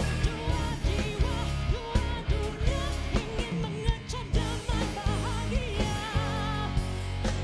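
A woman singing a pop ballad, her voice gliding and wavering with vibrato over a backing band of bass and drums.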